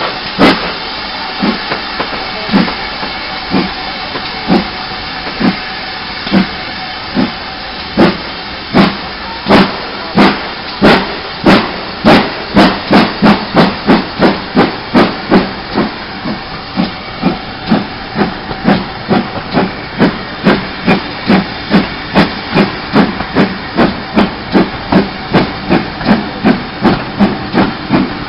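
Steam locomotive working hard as it gets the train under way, heard from a carriage a few vehicles behind: sharp exhaust chuffs quicken from about one a second to about three a second, over a steady hiss of steam.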